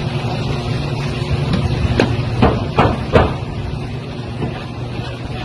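A handheld tool knocking against a parked car's body: four sharp strikes in just over a second, about two seconds in, over a steady low hum.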